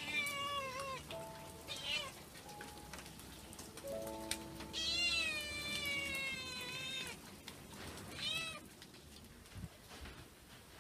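Tabby-and-white domestic cat meowing four times: a call of about a second, a short one, a long drawn-out meow of about two seconds, then a short one.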